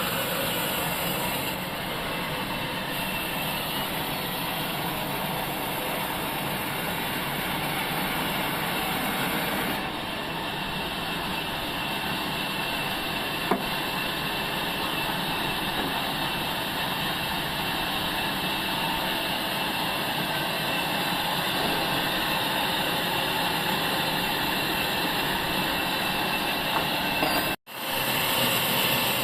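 Sawmill saw and its engine running steadily while cutting through a log, a continuous noisy whine. The sound cuts out for a moment near the end.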